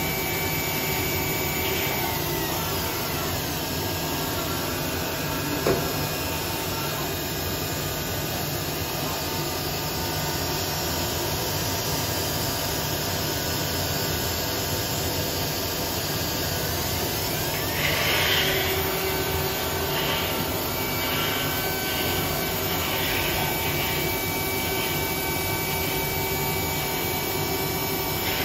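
Studer S40 universal cylindrical grinder running: a steady machine hum with several constant tones. There is a sharp click about six seconds in, and a brief hissing patch with a pitch glide around eighteen seconds in.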